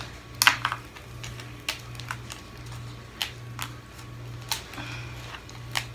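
Steamed blue crab shell being cracked and picked apart by hand: sharp, irregular cracks and clicks, a few each second.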